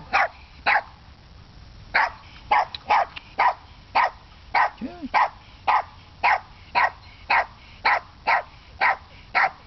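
Small dog barking over and over at someone holding out treats: short barks at a steady pace of about two a second, with one short pause about a second in.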